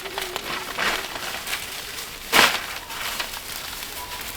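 Plastic bag or packaging crinkling in brief rustles as it is handled. The loudest rustle comes about two and a half seconds in.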